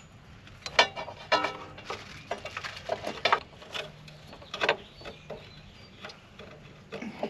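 Hand work on a corn planter's row unit while a knocked-off scraper is refitted: a series of irregular sharp metal clicks and clanks, a few of them ringing briefly.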